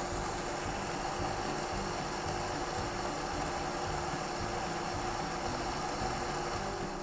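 A steady hum over an even hiss from a covered pan of chicken liver simmering in sauce on an electric cooktop.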